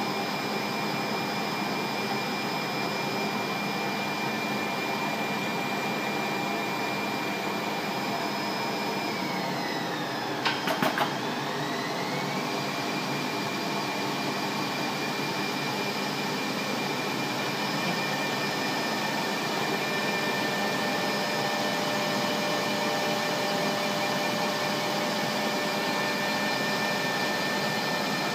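Computerized seamless circular knitting machine running, a steady mechanical whir with a high whine over it. About ten seconds in, the whine sags in pitch and climbs back, with a quick cluster of clicks at the low point. Later the whine settles at a slightly lower pitch.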